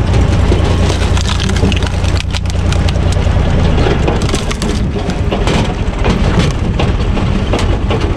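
A log splitting and cracking as the spinning screw cone of a PTO-driven log splitter bores into it, with many sharp cracks. Under it, the diesel engine of a U445 DT 4x4 tractor runs steadily.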